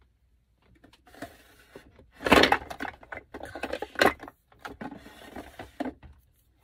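Small makeup items being rummaged through and handled, a run of rustling and clattering with louder knocks about two and four seconds in.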